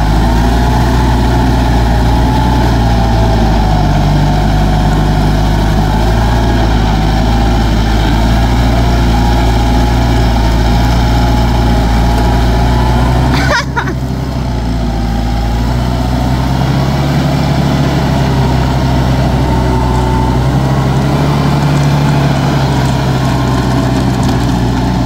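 Kubota tractor's diesel engine running steadily while it tills a muddy paddy field, with a pitched whine above the low engine note. A sharp click and a brief break come about halfway through.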